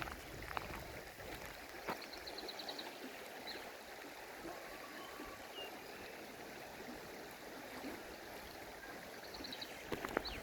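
Forest stream flowing with a steady rush of water. A bird gives a short, rapid high trill twice, a little over two seconds in and again near the end.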